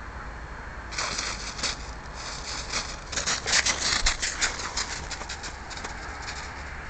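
Quick crunching footsteps in snow. They start about a second in, are thickest in the middle and thin out near the end, over a steady low rumble.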